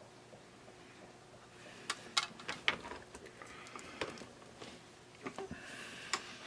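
Light clicks and taps of wires and small tools being handled while wire ends are tinned with solder and flux, with a faint hiss twice, about two seconds in and again near the end.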